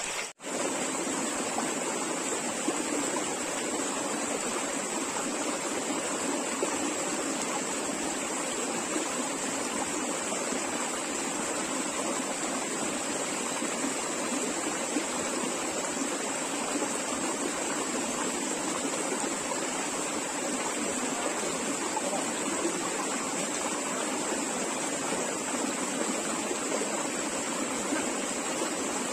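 Water rushing over boulders in a rocky hill stream: a steady, even rush that does not change.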